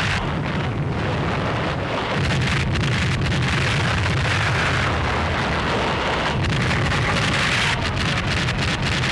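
Battle sound effects on an old film soundtrack: massed artillery and rocket fire blurred into one continuous, noisy din with a low rumble, with no separate shots standing out.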